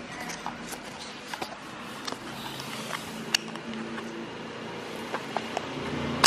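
Die-cast metal toy truck rolling across a laminate floor: a steady low rumble of its small wheels, with scattered light clicks and ticks, one sharper click a little past the middle, and a loud sharp click at the very end.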